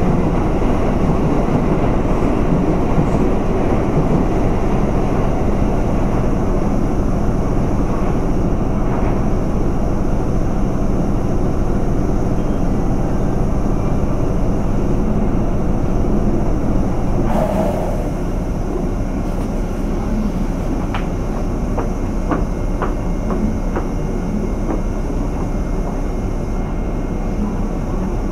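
JR West 201 series chopper-controlled electric train running, heard aboard motor car MoHa 200-247: a steady rumble of traction motors and wheels on rail with a low hum. About 17 seconds in there is a brief burst of noise, after which the running is somewhat quieter and a few sharp clicks follow.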